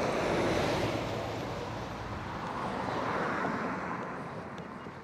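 A road vehicle passing by, its noise fading away.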